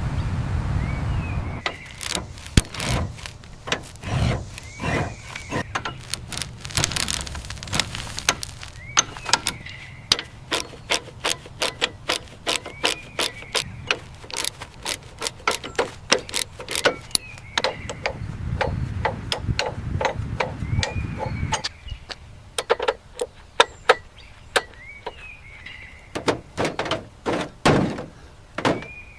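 Irregular series of sharp knocks, clicks and clanks from hand work on a rusted old car, several a second at times, with a short squeak every few seconds and a low rumble near the start and again later on.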